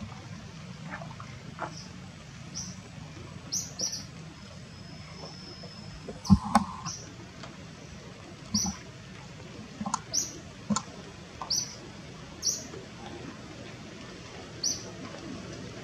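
Short high-pitched animal squeaks, about a dozen at irregular intervals, over a steady low background hiss. A single sharp knock about six seconds in is the loudest sound.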